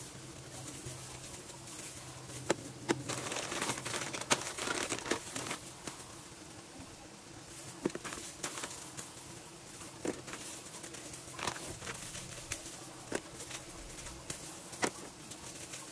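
Plastic zip-lock bag and thin plastic glove crinkling and rustling irregularly as hands squeeze and break a block of garlic and ginger paste into chunks, with scattered sharp crackles.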